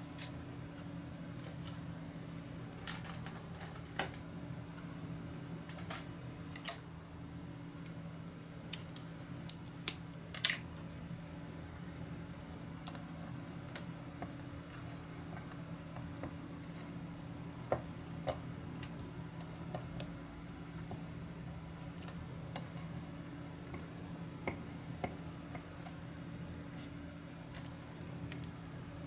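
Scattered small clicks, taps and paper rustles from handling paper and a glue stick on a cutting mat, over a steady low hum.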